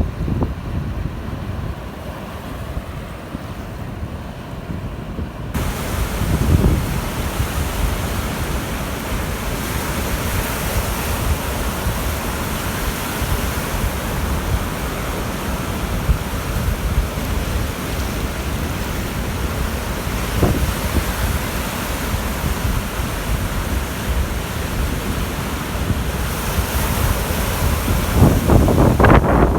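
Baltic Sea surf breaking on a sandy beach, with strong wind gusting over the microphone in a low rumble. About five seconds in, the sound changes abruptly to a fuller, brighter surf hiss.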